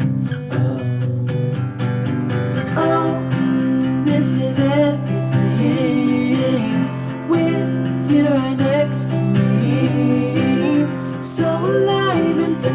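A song with strummed acoustic guitar and a singing voice, played back through a small JBL SCS 178 satellite speaker in a speaker audio test.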